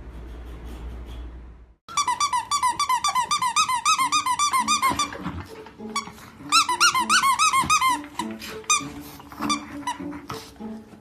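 Rapid high-pitched squeaks, several a second, starting about two seconds in and coming again in a second run later, over background music with held notes. A low hum fills the first two seconds.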